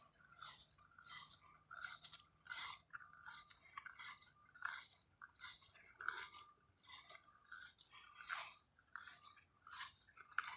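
Footsteps crunching on gravel at a steady walking pace, about two steps a second.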